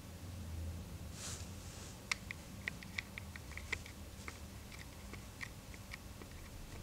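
A run of small, sharp, irregular clicks and ticks, several a second, over a low steady hum, with a soft hiss about a second in before the clicks begin.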